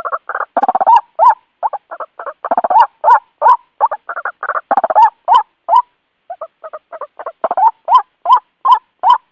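White-breasted waterhen calling: a rapid series of short rising notes, about two to three a second, mixed with harsher grating croaks, with a brief pause about six seconds in.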